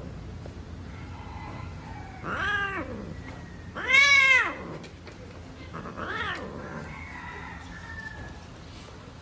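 A cat calling out while a pair of cats mate: three long meows, each rising then falling in pitch, about two, four and six seconds in, the middle one the loudest, followed by fainter calls.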